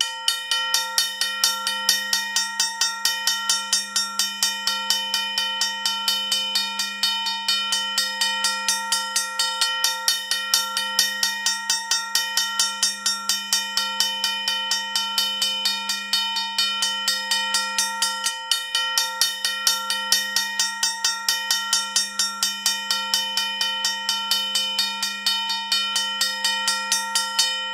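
Modern Industries mechanical railroad crossing bell ringing steadily, its hammer striking about four times a second, each strike ringing on into the next.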